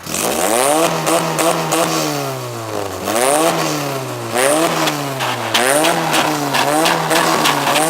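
Car engine revved hard four times, each rev rising sharply and then falling back slowly.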